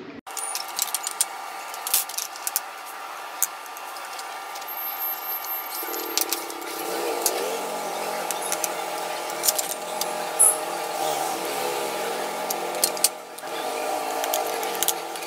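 Hacksaw blade sawing into a black plastic project box by hand, a stroke-by-stroke rasping scrape with many sharp clicks.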